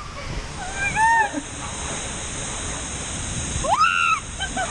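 Steady rush of water under a tube raft sliding down a water slide, with two short excited screams from the riders, about a second in and again near the end, the second rising sharply.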